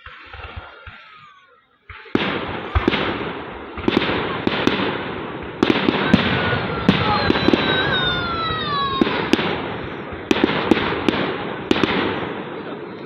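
Fireworks going off: after a brief lull, dense crackling sets in about two seconds in, with a dozen or so sharp bangs, and a whistle falling in pitch in the middle.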